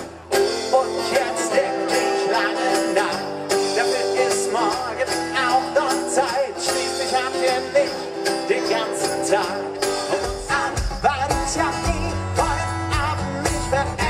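Live acoustic band music over a PA: acoustic guitar, upright double bass and hand percussion, with pitched melodic lines. About ten seconds in, a heavier rhythmic bass beat comes in.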